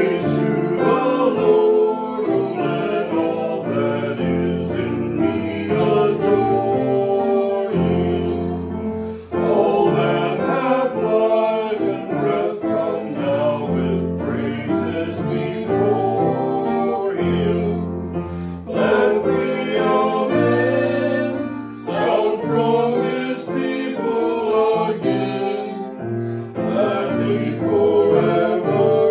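A congregation singing a hymn together with instrumental accompaniment, with short breaks between the sung lines.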